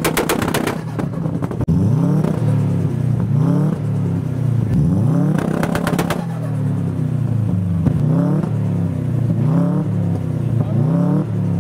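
Subaru boxer engine revved hard again and again, the revs rising and falling about once a second. Bursts of exhaust pops and bangs come near the start and about six seconds in.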